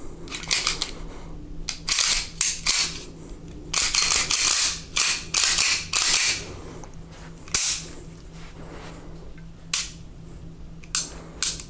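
A Beretta 92FS pistol being handled: a run of sharp metallic clicks and short scraping noises, thinning out to a few single clicks near the end.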